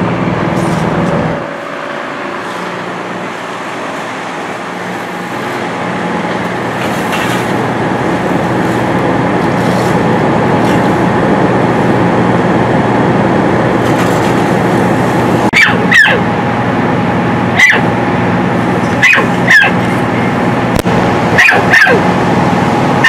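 A steady idling engine hum, with dogs caged in the kennels of an animal-care truck starting to bark about two-thirds of the way in: a series of sharp barks, some in quick pairs.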